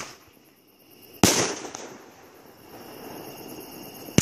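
A 500-gram Medusa Revenge firework cake firing. A single sharp bang comes about a second in and fades out quickly, and a second bang hits just at the end.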